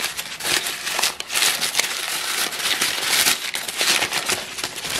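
Brown kraft packing paper crinkling and rustling steadily as it is handled by hand, pulled out of a cardboard box and unwrapped from around a small object.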